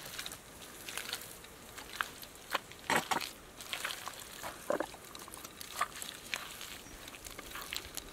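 Bare hands digging and scooping thick wet mud from a hole, giving irregular wet squelches and slaps, a few close together about three seconds in.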